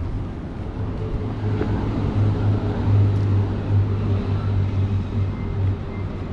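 Street traffic: a motor vehicle's engine drone close by, swelling to its loudest around the middle and then easing off.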